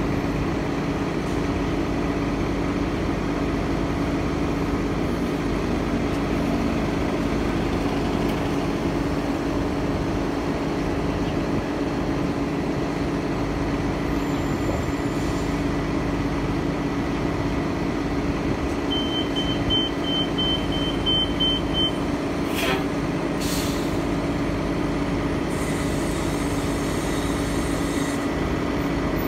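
A Metrobus transit bus idling at a stop, its engine giving a steady hum with a constant drone. About two-thirds of the way in a quick string of short high beeps sounds for a few seconds. Two sharp hisses of air follow soon after.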